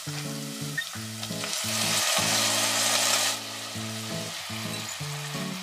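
Raw chicken pieces go into a hot stainless-steel pot of sautéing onions and start sizzling. The sizzle swells about a second and a half in, lasts about two seconds, then drops back to a quieter frying, all over background music with a bass line.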